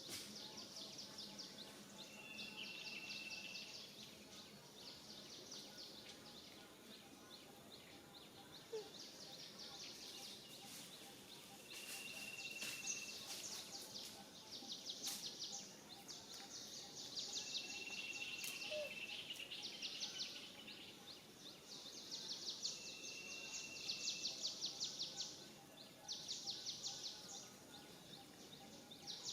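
Outdoor ambience of small birds or insects calling: repeated bursts of rapid, high-pitched chirping trills, each a second or two long, with a short whistled note four times.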